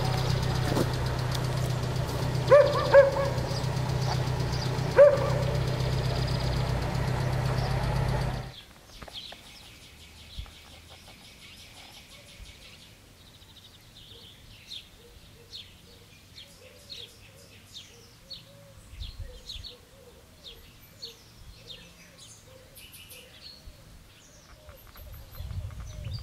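A steady engine hum with a few short barks over it. About eight seconds in it cuts off, and quiet birdsong follows: small birds chirping, with a lower call repeating again and again.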